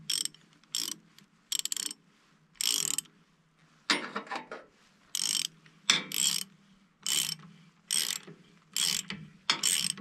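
Hand ratchet wrench being worked in short strokes, its pawl clicking on each back-swing in about a dozen brief runs of clicks, roughly one a second, as a fastener on the sawmill's clutch is tightened onto the engine shaft.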